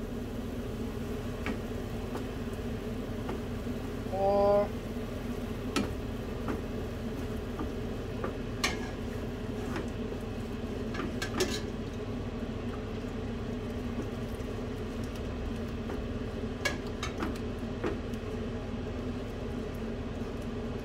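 Wooden spoon stirring a flour paste for gravy in a nonstick frying pan over low heat, with scattered light scrapes and taps against the pan over a steady low hum. A brief louder tone sounds about four seconds in.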